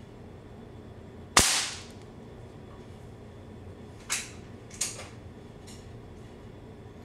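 A single sharp shot from a Benjamin Prowler .177 gas-piston break-barrel air rifle, dying away over about half a second. Two fainter sharp clicks follow a few seconds later.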